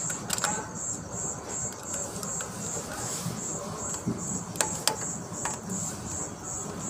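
A cricket chirping steadily, a high pulse about three to four times a second, with a couple of sharp knocks about two-thirds of the way in.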